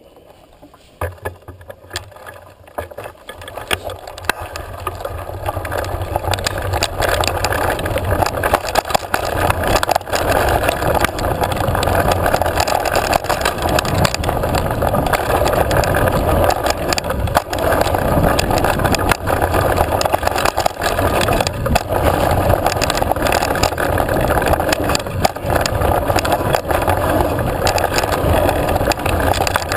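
A mountain bike riding down a dirt singletrack, heard from a camera moving with the rider: wind rushing over the microphone, tyres on dirt and gravel, and frequent knocks and rattles from the bike and mount over bumps. It starts quiet and builds over the first several seconds as the bike picks up speed, then stays loud and steady.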